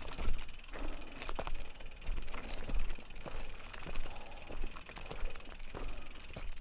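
Mountain bike riding over a forest dirt track: tyres rolling on dirt and twigs, with irregular knocks and rattles from the bike and a low rumble underneath.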